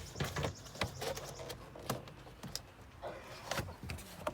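Plastic door trim panel being worked off a car door against its push-pin clips: scattered short clicks and knocks with scraping and creaking of plastic between them.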